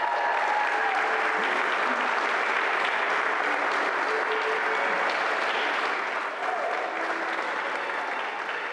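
Congregation applauding steadily, with a few voices in the crowd; the clapping begins to taper off in the last few seconds.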